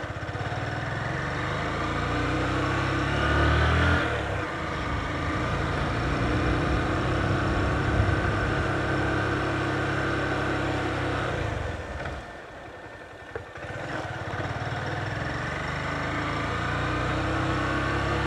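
Motorcycle engine running as the bike rides along a street, the pitch rising as it speeds up over the first four seconds, then dropping at a gear change. It runs steadily, eases off and goes quieter about twelve seconds in, then picks up and rises again toward the end.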